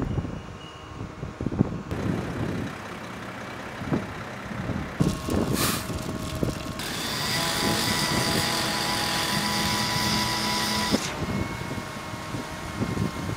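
Heavy diesel machinery at a concrete pour, from concrete trucks and a boom pump, running with knocks and clatter. A steady hiss with a faint whine runs through the middle, and the sound changes abruptly several times.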